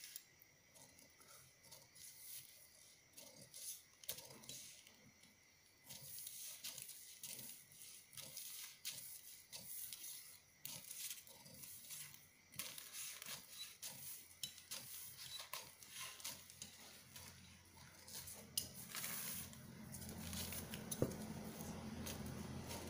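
Large tailor's shears cutting along a spiral line through a paper pattern: a long run of quiet, short, irregular snips of the metal blades closing.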